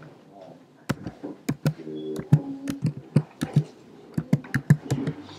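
A run of about a dozen sharp, irregular knocks and taps close to the microphone, with something brushing and bumping right against the recording device.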